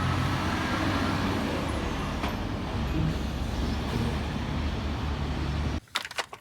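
A heavy vehicle's engine running steadily with a low hum, cutting off abruptly near the end, followed by a few sharp clicks.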